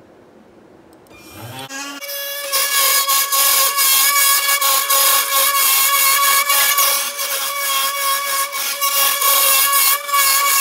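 Small desktop CNC router's spindle motor spinning up with a rising whine about a second in, then running at a steady high whine as the bit carves into a block of wood, with a continuous scratching, rasping cut noise.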